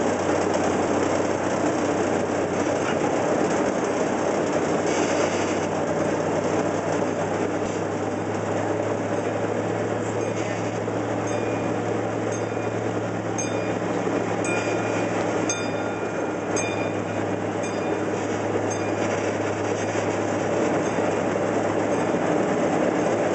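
Miniature park train riding along, heard from an open passenger car: a steady rumble and rattle of the wheels and cars under a low, even hum, with a few light clicks partway through.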